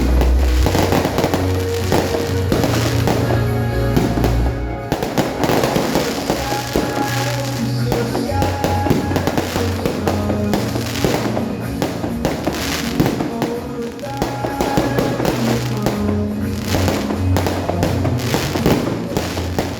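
Fireworks going off in rapid bangs and crackles, over music with held notes and a bass line.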